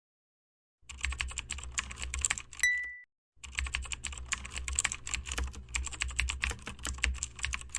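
Rapid typing on a keyboard, a fast run of key clicks that starts about a second in, pauses briefly after about three seconds and then goes on. A short bell-like ding sounds about two and a half seconds in.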